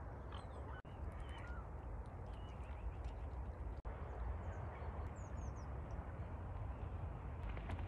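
Wild birds calling in short chirps now and then over a steady low rumble, with the sound cutting out briefly twice.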